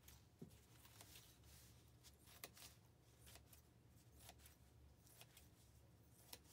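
Scissors cutting fringe strips into a thin plastic tablecloth: faint, irregular snips, roughly one a second.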